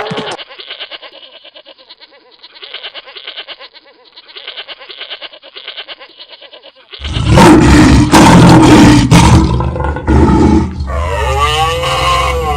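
Rapid, even hoofbeats of running animals for about seven seconds, then a sudden, very loud roar like a big cat's lasting about four seconds. Near the end comes a pitched animal call that swoops down and up in pitch.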